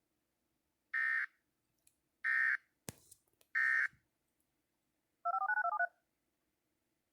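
Emergency Alert System end-of-message code closing the test: three short bursts of shrill digital data tones, about a second and a quarter apart. A click sounds between the second and third bursts. About five seconds in, a rapid string of touch-tone (DTMF) beeps plays for under a second.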